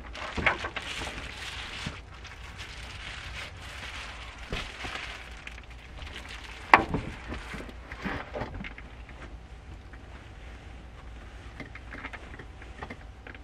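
Cloth being handled and rustled, with scattered light knocks and one sharp knock about seven seconds in, over a steady low rumble.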